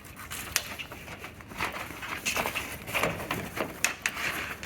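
Irregular handling noises of wires and cables being pulled through under a boat's steering helm: scattered sharp clicks and short rustles.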